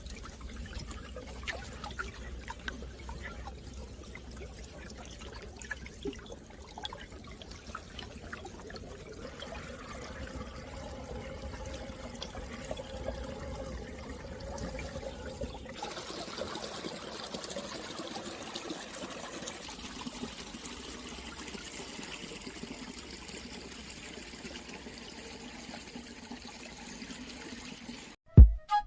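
Water trickling and gurgling under the ice of a frozen stream, a steady watery rush with a faint hum in it. About halfway through, the low rumble drops away and the sound turns thinner and hissier.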